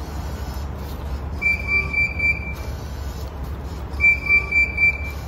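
Self-serve car wash pay station beeping as dollar bills are fed into its bill acceptor: two runs of quick high beeps, each about a second long, over a steady low rumble.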